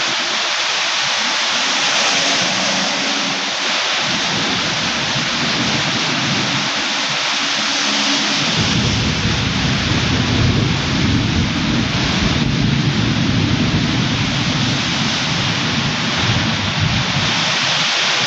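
Heavy rain falling steadily, with a long low rumble of thunder coming in about halfway through and dying away near the end.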